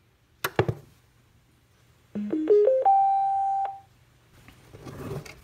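A toggle switch clicks about half a second in as the homemade ammo-can Bluetooth speaker is switched on. About two seconds in, its Bluetooth amplifier module plays a power-up chime through the speaker: a quick rising run of four short notes, then a higher note held for about a second.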